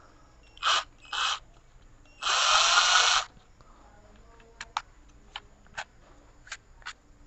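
Black & Decker 12-volt cordless drill/driver motor run in two short blips, then for about a second, spinning up with its chuck empty. Small clicks follow as a metal-drilling bit is fitted into the keyless chuck by hand.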